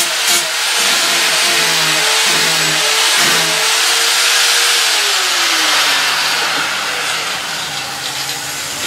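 Electric power tool running against a wooden flag pole, stripping the polyurethane finish down to bare wood: a loud abrasive hiss over a motor hum whose pitch dips several times and sags lower about five seconds in.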